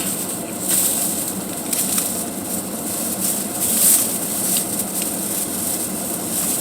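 Plastic shopping bags rustling and crackling irregularly as grocery items are dug out, over a steady hiss of a vehicle's fan.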